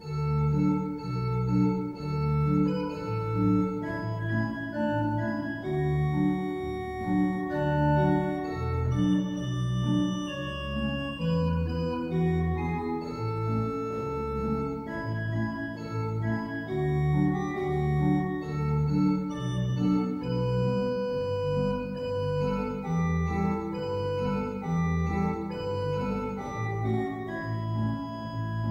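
Pipe organ playing a piece of sustained chords over a moving bass line. It begins suddenly out of silence.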